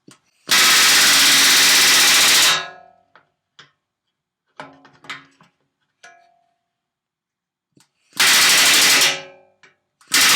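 Pneumatic rivet gun hammering solid aluminium rivets into an RV-7 horizontal stabilizer. It fires in a long burst of about two seconds, then one of about a second, and another starts right at the end, with the aluminium structure ringing after each burst. Light clicks of tools being handled come in between.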